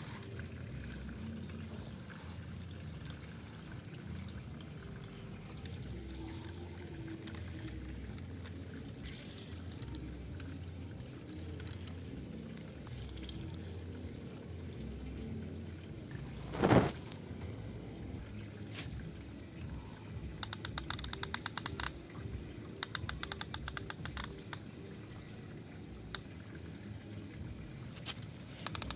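Toy crawler crane's plastic winch clicking in rapid runs over roughly the last third, as the crane hoists an overturned toy truck. Before that there is a low steady background, with one short thump about two-thirds of the way in.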